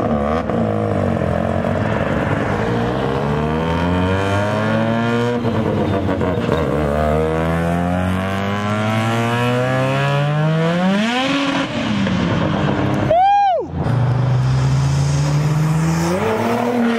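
Pickup ute's engine revved hard as it pulls away from a burnout, the note climbing through the gears with a sudden drop at a shift about five seconds in, climbing again and falling off around eleven seconds. A short tone sweeps up and down about thirteen seconds in, then a second car's engine comes in at a steadier, lower note that rises near the end.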